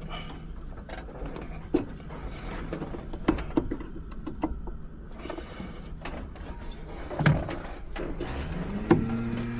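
Scattered metal clicks and knocks of hand work, with a heavier knock about seven seconds in. Near the end a small motor winds up and settles into a steady hum.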